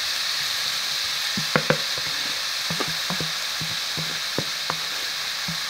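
Diced onions and bell peppers sizzling steadily in hot oil in a metal pot as they are stirred with a wooden spoon, with scattered light knocks of the stirring.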